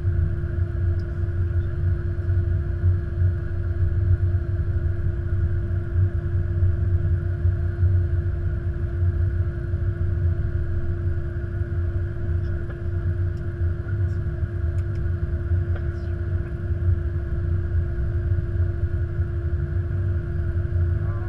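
Airbus A330-200 flight deck noise while taxiing: a steady low rumble with a constant hum.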